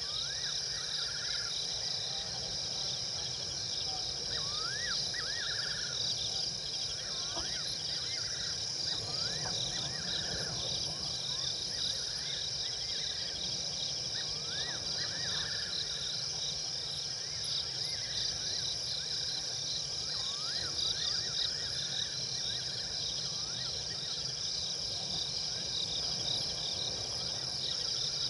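Steady chorus of crickets and other insects, a dense high trilling, with short rising chirps repeated in small clusters from another calling animal.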